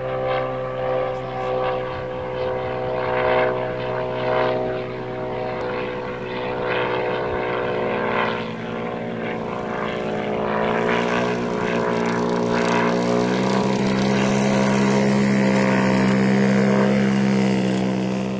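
Phantom ultralight's engine and propeller running steadily as the aircraft lands and rolls along the ground. The engine note changes about halfway through, then grows louder as it passes close and drops away at the very end.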